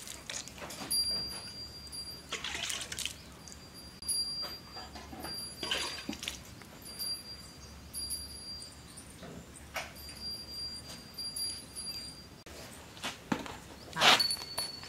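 Small metal bell hung on a cow's neck tinkling on and off as the cow moves, with a few short splashy squirts of milk from hand milking, the loudest near the end.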